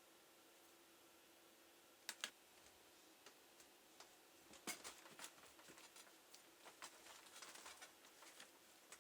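Faint, irregular clicks and taps of a laptop being worked on by hand: plastic and small metal parts knocking and snapping, with a short run of rattly clicks near the end, over a faint steady hum.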